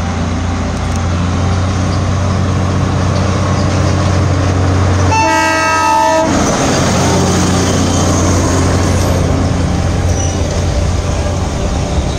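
A Darjeeling Himalayan Railway narrow-gauge diesel locomotive running with a steady low engine drone as it passes close by hauling its coaches. Its horn sounds once for about a second, about five seconds in.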